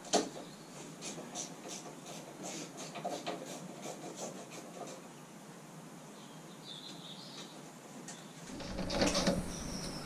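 Scattered light clicks, taps and rubbing from hand work on a convertible hood's rear window frame and its fabric. The handling gets busier and louder near the end.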